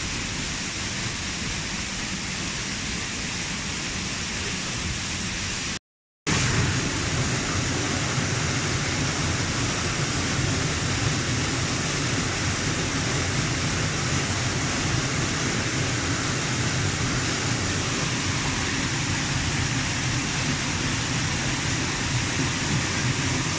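Waterfall's steady rushing noise. It cuts out for a split second about six seconds in and comes back louder and deeper.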